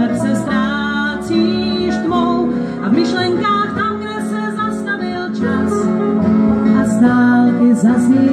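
Live acoustic string band playing a country-style song: strummed acoustic guitars, banjo and upright bass, with a woman singing lead.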